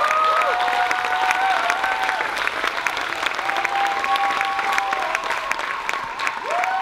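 Audience applauding, dense clapping throughout, with a few long whoops held over it near the start, in the middle and near the end.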